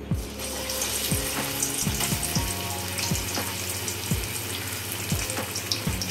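Marinated, batter-coated chicken lollipop dropped into hot oil in a steel kadai, the oil starting to sizzle and bubble suddenly and then crackling steadily as the chicken deep-fries. Background music with a soft beat about once a second underneath.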